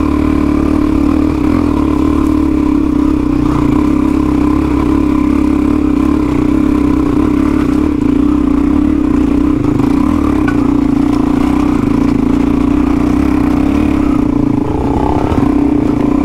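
Motorcycle engine running steadily at constant revs, a loud even drone.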